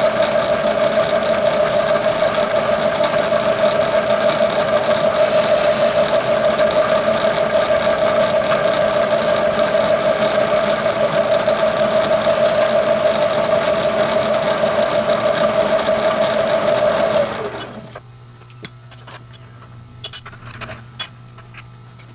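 A shop machine running steadily with a strong, even hum, shutting off about 17 seconds in, followed by a few light clicks and taps.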